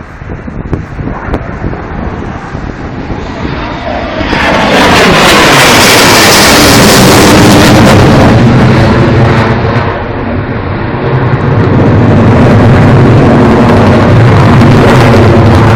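Military jet aircraft flying low past at an air show, very loud. The jet roar jumps up sharply about four seconds in, with a falling pitch as it passes. It eases briefly around ten seconds, then swells loud again.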